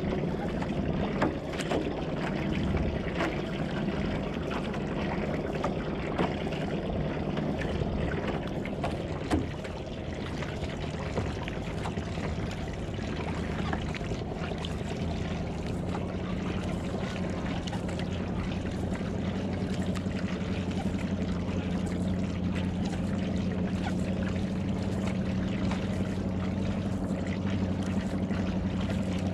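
One-person outrigger canoe under paddle: water rushing and splashing along the hull, with the splash of the paddle blade and a few short knocks. A low steady hum comes in about halfway through.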